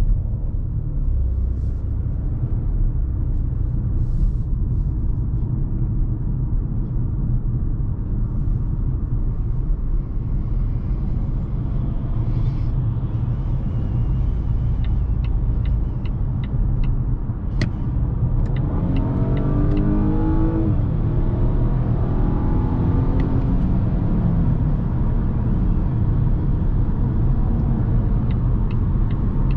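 In-cabin sound of a 2020 Volvo V60 T5 Cross Country at road speed: steady low rumble of tyres and road with the 2.0-litre turbocharged four-cylinder engine running. About two-thirds of the way in the engine note climbs in pitch under acceleration, twice in a row as the gearbox shifts up, then settles back into the steady cruise.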